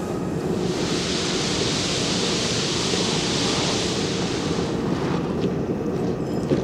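Steam hissing over a steady low rumble; the hiss fades out about four to five seconds in, leaving the rumble and a few faint clicks.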